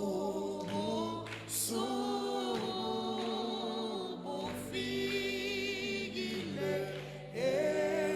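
A slow Zulu hymn sung by several voices in harmony, in long held notes with vibrato.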